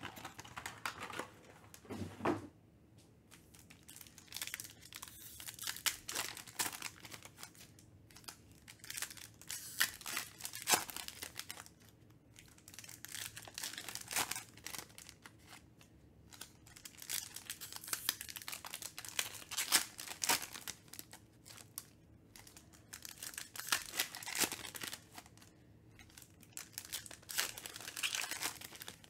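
Foil trading-card packs being torn open and crinkled by hand, one after another, in irregular crackling bursts. A single low knock comes about two seconds in.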